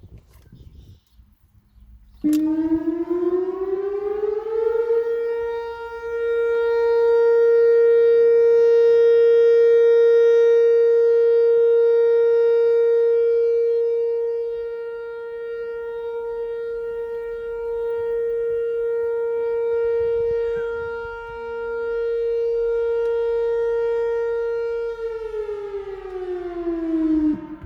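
Whelen WPS-4004 electronic outdoor warning siren sounding a steady tone for its monthly test. About two seconds in it winds up in pitch over about three seconds, then holds one note for about twenty seconds, swelling and fading in loudness. Near the end it winds back down and cuts off.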